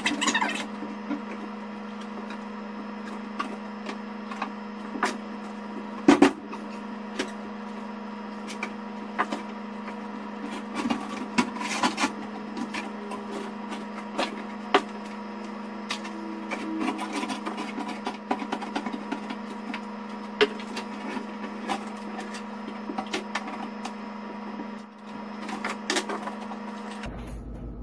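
Scattered clicks, knocks and short scrapes of hands working at a stainless steel kitchen sink set in a laminate countertop, with a sharper knock about six seconds in, over a steady low hum.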